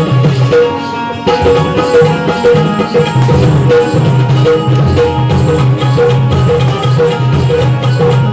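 Loud music with drums and a steady beat, heavy in the bass.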